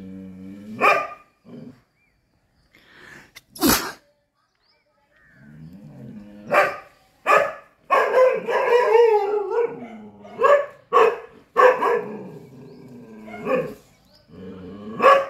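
Chippiparai dog barking repeatedly, about ten barks, with drawn-out pitched cries between them and one long run of barking near the middle.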